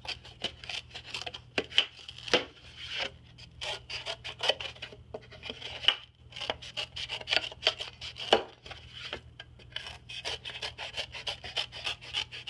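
Scissors cutting through a styrofoam tray, trimming off its raised edges: many quick cuts in a row, with a few short pauses.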